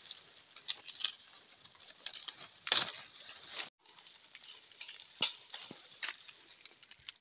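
Leaves and twigs rustling and crackling as plants are handled, with scattered sharp snaps, over a steady high hiss.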